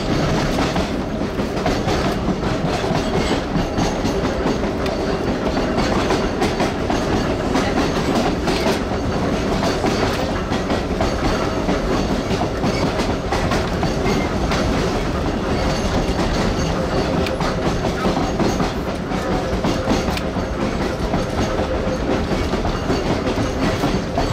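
Aboard a CRT/CTA 4000-series rapid-transit car under way: steady running noise of its wheels and old traction motors, with the clickety-clack of wheels over rail joints.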